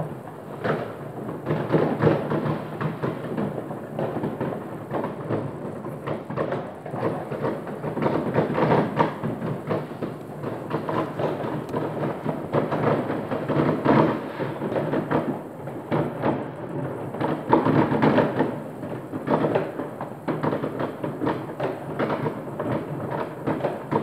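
Many consumer fireworks going off at once across a town in a continuous barrage: bangs and crackling packed so densely they run together into a rumble.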